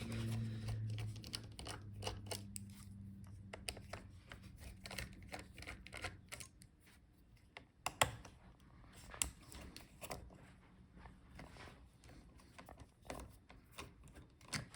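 Screwdriver working the heatsink screws on a laptop: scattered light clicks and ticks of the tool and the small metal screws against the heatsink and chassis, with a low hum fading out in the first second or so.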